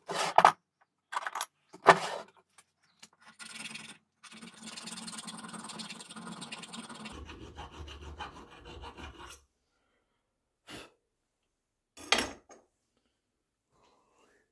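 Tools working the small metal slider of a rifle peep sight. Sharp knocks come in the first two seconds. About four seconds in, a steady rasping cut runs for about five seconds, most likely the step being milled into the slider. One more knock comes about twelve seconds in.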